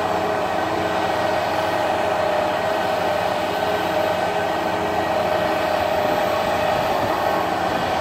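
Pile driver rig's engine running hard under load while it drills a pipe pile into the ground: a steady drone with a constant hum on top, no hammer blows.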